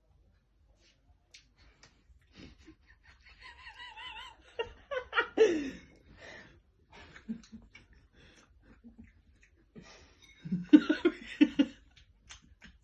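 People laughing in short bursts, once about five seconds in and again, louder, about ten and a half seconds in, with scattered light clicks between.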